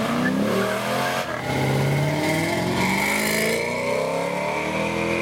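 A car engine accelerating hard, its pitch climbing steadily as it pulls away, with a brief break about a second in. A steady high whine sits over it from about two seconds in.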